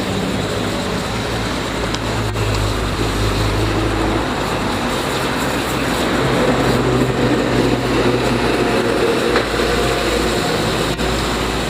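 Car-wash pressure washer running steadily: a motor or pump hum under the hiss of water spraying.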